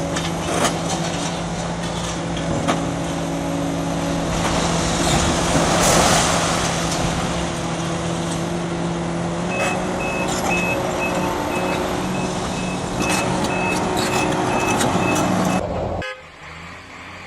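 Heavy machine's engine running steadily, with a constant hum and scattered knocks and clatter. About ten seconds in, a high, steady, repeating beep joins it, like a warning alarm. The sound cuts off abruptly shortly before the end.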